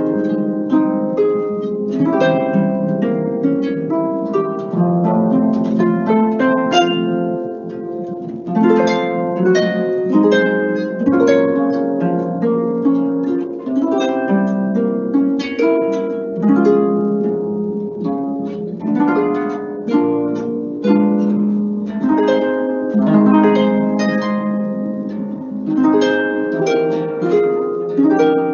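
Solo concert harp being played: a steady stream of plucked notes and chords, each note ringing on after it is plucked.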